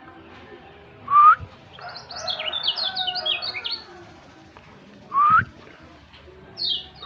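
Birds calling and singing: a white-eye (pleci) gives a rapid run of high, quick descending notes for about two seconds, and a bird makes two loud, short upswept calls, one about a second in and one about five seconds in. Another short, high descending run comes near the end.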